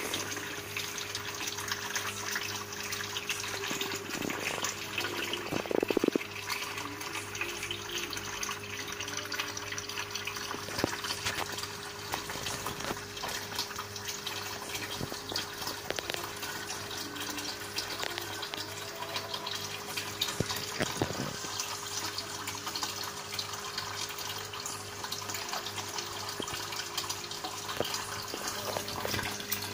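Water running and splashing steadily into a goldfish tank, with a steady low hum underneath. The sound is briefly louder about six seconds in.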